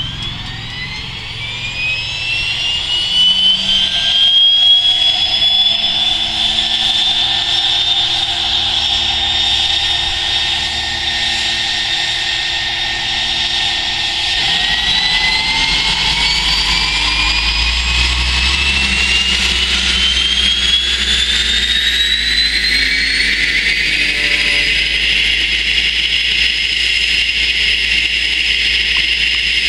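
Cessna Caravan's Pratt & Whitney PT6A turboprop engine starting up. A turbine whine rises over the first few seconds and holds steady, then rises again from about halfway before levelling off, with a low rumble from the propeller growing underneath.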